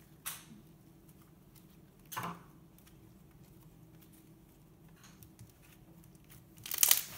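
Thick yellow slime being stretched, folded and squeezed by hand, giving a soft pop about two seconds in and a burst of crackling pops near the end as air pockets are pressed out.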